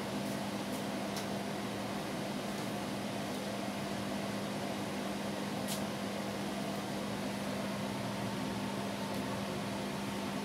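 Daewoo microwave oven running while it heats a dish, a steady hum with a few faint ticks.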